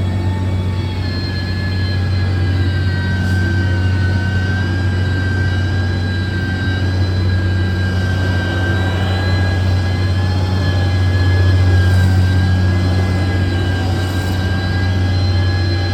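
Heavy earthmoving machine's diesel engine running steadily under a constant load, a deep drone with a steady high whine over it.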